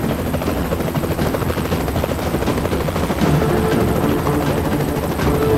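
Coast Guard rescue helicopter hovering, its rotor chop and engine noise loud and steady, heard from inside the cabin at the open hoist door.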